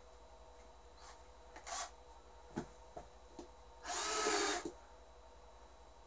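Cordless drill run against a cowboy boot in one burst of just under a second, about four seconds in. Before it come a shorter burst and a couple of sharp knocks from handling the drill and boot.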